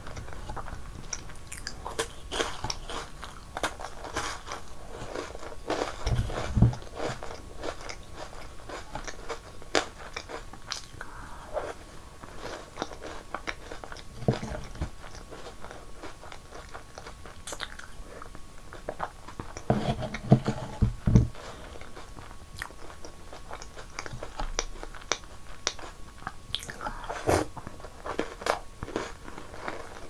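Close-miked biting, crunching and chewing of crisp snacks soaked in strawberry milk: many small crisp crunches, with a few deeper thuds now and then.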